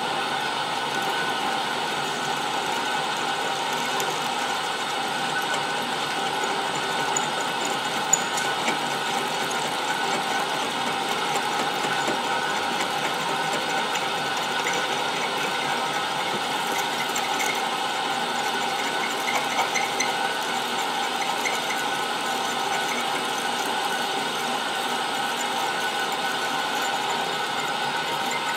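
Old Buffalo drill press running steadily as its bit drills a hole into a 304 stainless steel hinge knuckle. There is a single sharp click about eight seconds in and faint squeaks from the cut now and then.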